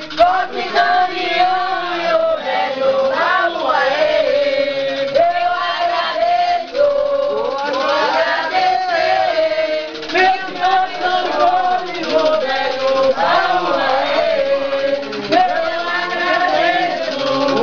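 A group of men and women singing an Umbanda ritual chant together, with long held notes that waver and bend.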